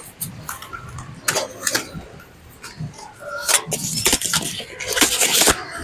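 Foam protective sleeves being pulled and slid off a bicycle's frame tubes: irregular rustling and scraping with sharp clicks, loudest in the second half.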